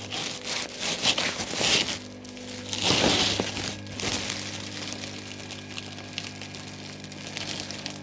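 Woven polypropylene sack rustling and crinkling as it is handled and pushed down into a water barrel, loudest about three seconds in, then settling. Underneath runs the steady hum of the aeration air pump working in the barrel.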